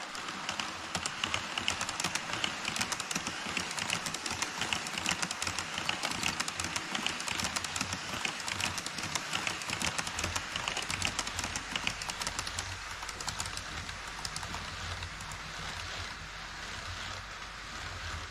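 HO-scale model train wheels clattering in quick, dense clicks over the rail joints of a truss bridge as a freight train of container wagons runs across. An E5 Shinkansen model follows; a low hum joins about ten seconds in and the clicking thins out toward the end.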